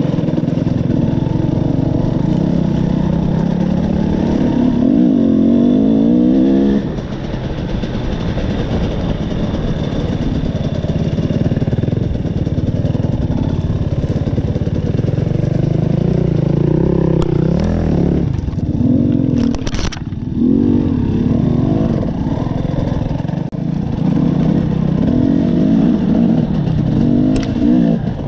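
KTM 300 XC two-stroke dirt bike engine heard from the rider's helmet, revving up and down through the gears on a trail ride. It revs up hard and then drops off suddenly about seven seconds in. A few sharp knocks come about two-thirds of the way through.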